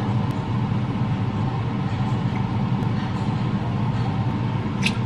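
Steady, even hum of a kitchen range-hood fan running over a gas stove. A light metallic clink of tongs against a stainless-steel stockpot comes near the end.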